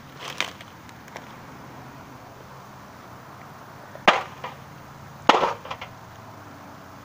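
A stick striking a box on the ground: two hard, sharp hits a little over a second apart, with a few lighter knocks near the start.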